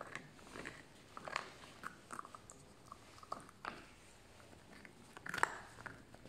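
Puppy gnawing a large bone: irregular clicks and crunches of teeth on bone, with a louder run of crunching about five seconds in.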